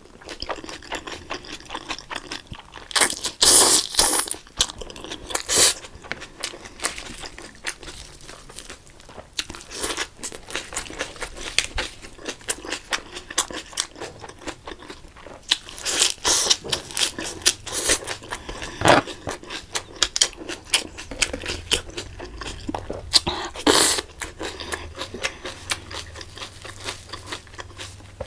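Close-miked eating: chewing and crunching food, a dense run of small clicks with louder crunches now and then.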